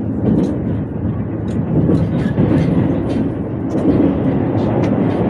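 Shinkansen running, heard inside a passenger car: a steady low rumble with scattered light clicks and rattles.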